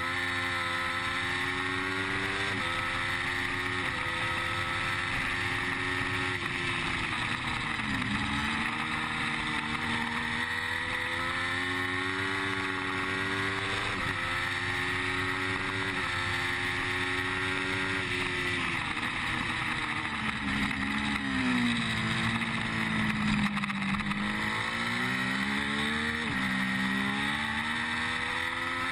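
Triumph Street Triple's 675 cc three-cylinder engine at racing speed under an onboard camera, its pitch climbing and dropping sharply at each gear change. About two-thirds in the pitch falls with short quick rises as the bike slows for a corner, all over a steady rush of wind.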